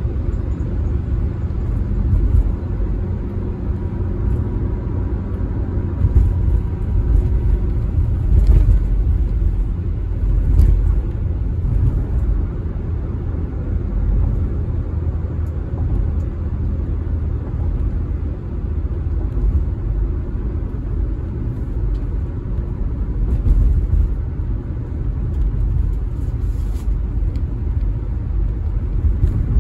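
Car driving, heard from inside the cabin: a steady low rumble of tyre, road and engine noise, with a few faint clicks.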